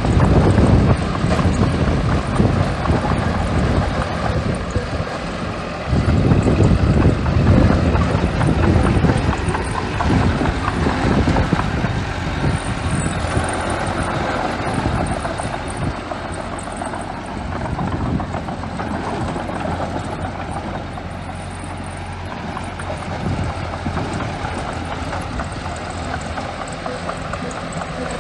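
Small bulldozer's diesel engine running under load as it pushes sand, louder through the first ten seconds and then steadier.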